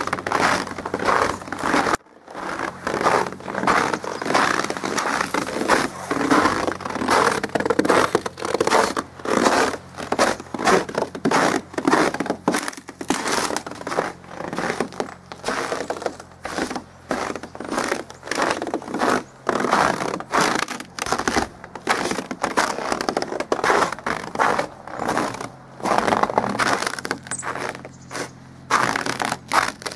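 Footsteps crunching through crusty snow at a steady walking pace.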